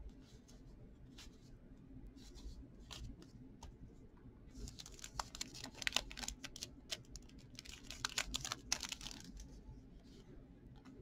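A stack of 2013-14 O-Pee-Chee hockey cards being flipped through by hand: dry flicks and slides of card against card, scattered at first, then a quick run of rapid clicking flicks through the middle with a short pause between.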